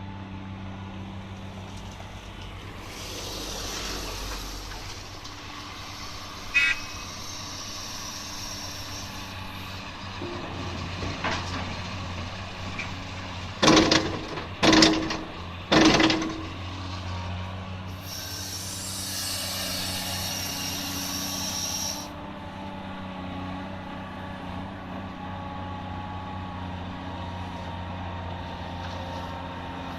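Cat 345D L excavator's diesel engine running steadily, with two spells of hiss and three loud knocks about a second apart midway.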